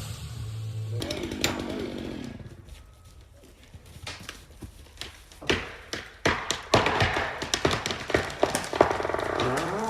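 Chainsaw work in tree felling: a steady low running sound for about a second, then, after a quieter stretch, a dense string of sharp cracks and knocks through the second half. Near the end the saw revs up with a rising whine.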